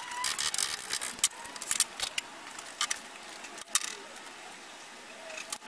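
Rapid, irregular metallic clicks and rattles of a wrench and the fittings of the small hydraulic lines being unscrewed from a ZF power-steering rack, in footage that is sped up.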